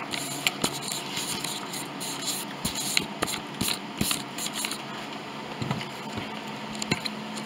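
Rustling and crinkling of plastic and paper food packaging, with scattered light knocks and scrapes as things on the table and the camera are handled.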